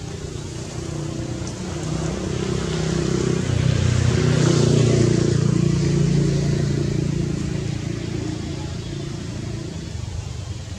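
A motor vehicle's engine passing by: a steady low engine sound that grows to its loudest about five seconds in, then fades away.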